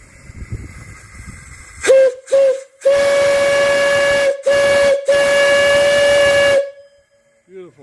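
Brass steam whistle on a fire-tube steam boiler, blown by pulling its cord: one steady note over a rush of steam. Two short toots come first, then three longer blasts, the last the longest.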